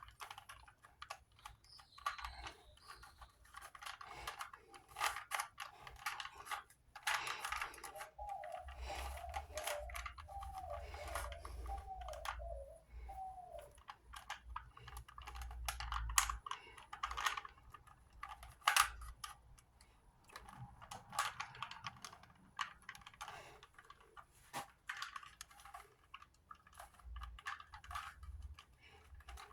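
Plastic Rubik's Cube being twisted by hand: irregular runs of clicking as its layers turn.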